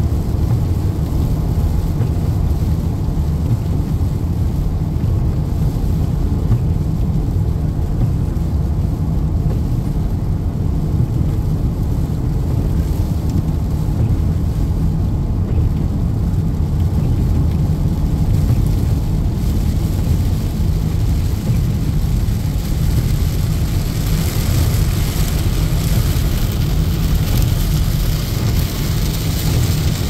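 Steady low rumble of road and engine noise inside a car driving on a wet highway. Near the end a higher hiss of rain on the windshield grows louder.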